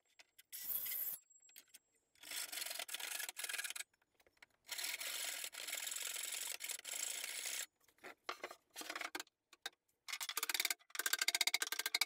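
Rubbing and rasping on wood in several bursts lasting one to three seconds each, the last one with a fast, even clicking running through it.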